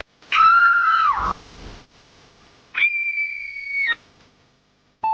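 A high, pitched cry lasting about a second and dropping in pitch at its end, then a steady whistle-like tone held for about a second, and a short beep near the end.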